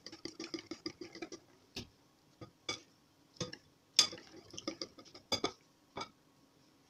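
Metal wire whisk beating cake batter in a glass bowl, clicking against the glass about five times a second at first. It then slows to scattered, louder taps and knocks, the loudest about four seconds in, and stops about six seconds in.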